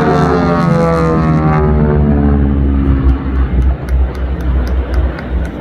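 Radial engines of a formation of North American T-6 Texans droning past, the pitch falling steadily as they fly by, then fading into a rough, uneven rumble.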